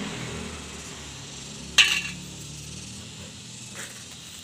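A single sharp click about two seconds in, then a fainter one near the end, over a quiet steady background.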